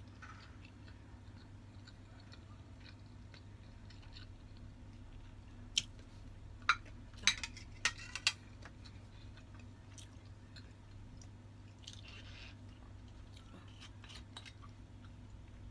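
Close-up chewing and eating sounds, with a few sharp clicks or clinks between about six and eight seconds in, over a steady low hum.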